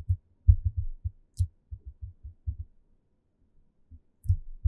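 Irregular soft low thumps, about a dozen clustered in the first half and a few more near the end, with a few faint sharp clicks: desk handling noise picked up by the microphone while the pointer on the whiteboard is worked.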